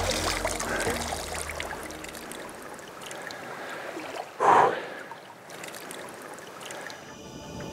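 Shallow water trickling and splashing as a large fish is held up dripping, with one short, louder splashy burst about four and a half seconds in. Music fades out at the start and comes back in near the end.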